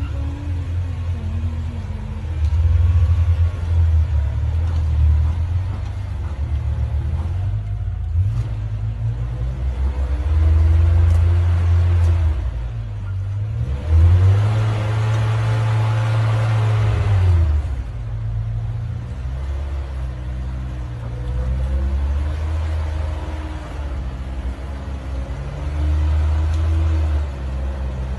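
Engine of a 1985 Toyota Pickup rock crawler revving up and down as it crawls over boulders. About halfway through it gives one longer, louder rev that climbs, holds and falls away.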